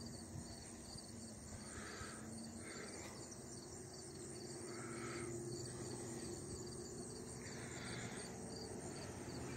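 Outdoor summer ambience: crickets chirping in a steady, high, pulsing trill, with a few faint short calls and a low steady hum underneath.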